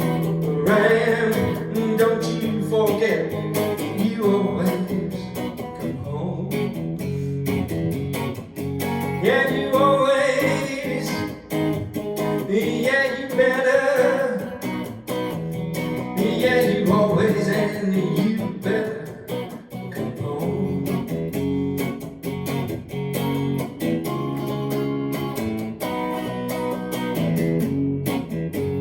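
Guitar-led music: strummed guitar chords with a melody line bending above them, and no lyrics sung.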